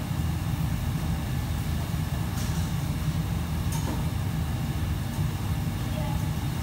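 Steady low rumble of a working restaurant kitchen's equipment, with a couple of faint clinks of cooking utensils about two and a half and nearly four seconds in.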